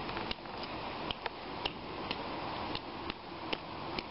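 A toddler's small boots stepping in a shallow muddy puddle: light, irregular taps and slaps, about three a second, over a steady background hiss.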